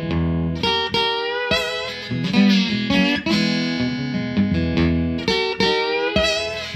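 Acoustic guitar in open E tuning being played, chords struck and left ringing, with some notes wavering in pitch.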